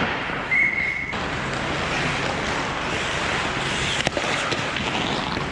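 Ice hockey play around the net: a steady scraping hiss of skates on ice, with a brief high tone about half a second in and a sharp crack about four seconds in.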